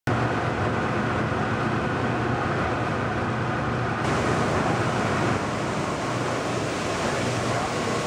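Steady loud roar of a furnace fire with sparks flying, over a low machinery hum. A brighter hiss comes in about halfway through.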